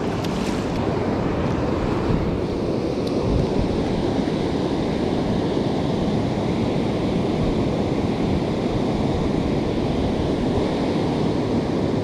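Steady rush of river water pouring over a weir, with wind on the microphone.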